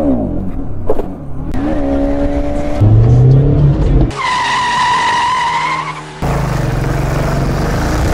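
Quick-cut montage of vehicle sounds: motorcycle engines revving and running, with rising revs early on and a loud low engine note just before the middle. In the middle a steady high-pitched squeal lasts about two seconds, then engine running resumes.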